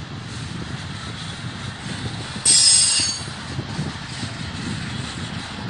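BNSF double-stack intermodal freight train's well cars rolling past with a steady low rumble. About two and a half seconds in, a loud, high-pitched metal squeal from the wheels starts suddenly and fades within a second.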